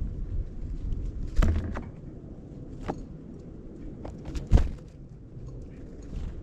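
A low rumbling noise with a few sharp knocks over it, the two loudest about a second and a half in and about four and a half seconds in.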